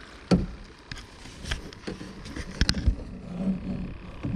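Several sharp knocks and bumps on the aluminum hull of a small jon boat, as rod and gear are handled during a fish fight. There are about four knocks, two of them close together a little under three seconds in.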